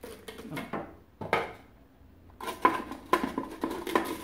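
Hard chunks of stale bread knocking into a plastic food processor bowl, then the plastic lid clattering and clicking as it is set on and pushed down, a quick run of sharp knocks from about two and a half seconds in. The lid is a tight fit.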